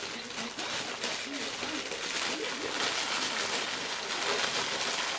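Shiny green gift-wrapping paper rustling and crinkling as a small child's hands pull at it, a continuous crackly hiss that grows stronger about halfway through.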